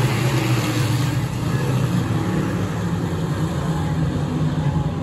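Dirt-track Limited Sportsman modified race cars running at speed in a feature race, their engines making a steady, loud drone.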